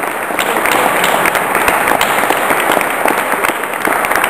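Applause: many hands clapping at once in a dense, steady patter.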